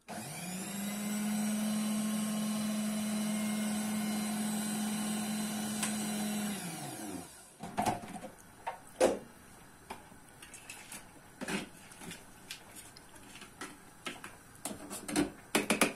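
Countertop food processor motor starting up, running steadily for about seven seconds while it purées red capia peppers, then winding down. Afterwards there are scattered clicks and knocks as the plastic lid and bowl are handled.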